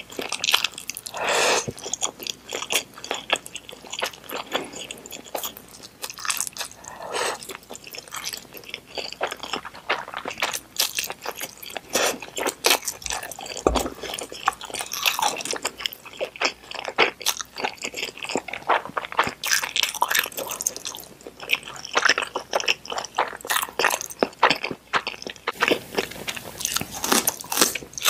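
Close-miked eating sounds: a person slurping up stir-fried instant ramen and udon noodles and chewing with wet mouth clicks. There are several drawn-out slurps, about a second in, around seven seconds and around fifteen seconds.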